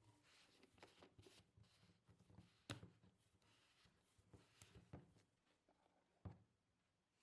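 Faint handling sounds of items and packaging: light rustling with scattered taps and a few sharper clicks, the sharpest a little under three seconds in.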